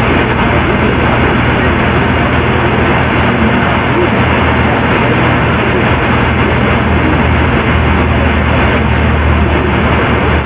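Steady, loud static-like noise with a low hum underneath and no distinct events. It sounds like a heavily amplified recording's own background noise.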